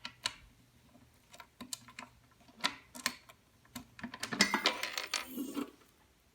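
Metal key and key ring on a SentrySafe QAP2EL pistol safe's backup key lock: scattered sharp metallic clicks, then a louder jangling clatter lasting about a second and a half, about four seconds in.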